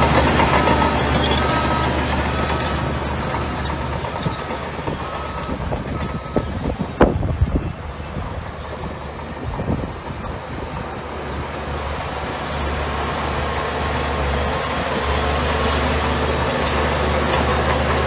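Bulldozer's diesel engine running steadily while its reversing alarm beeps about once a second through the first six seconds or so. A few sharp clanks come about seven seconds in, and the engine picks up again in the last few seconds.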